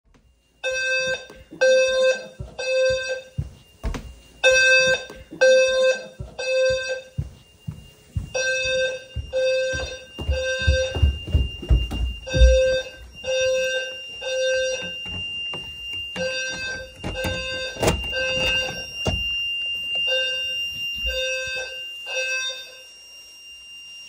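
Fire alarm system horns sounding the temporal-three evacuation pattern: three low-pitched buzzing tones of about half a second each, then a pause, repeating every four seconds, with a steady high beep joining about eight seconds in. The horns stop shortly before the end as the alarm is silenced at the panel. The alarm was set off by cooking smoke.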